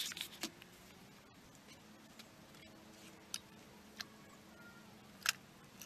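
Mostly quiet, with a handful of brief separate clicks, the clearest about a second before the end, from a child's spincast fishing reel being handled; a faint steady low hum runs underneath.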